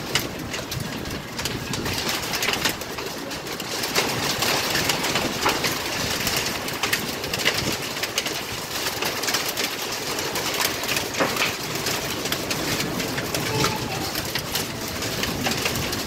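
Rain falling on a hard floor: a steady hiss of rain, dotted with many separate drop hits.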